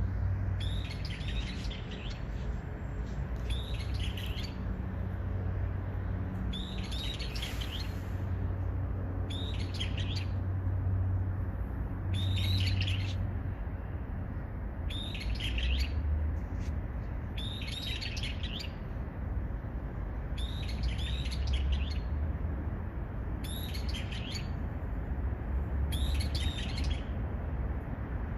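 A songbird repeating a short, high song phrase about every two seconds, over a steady low background rumble.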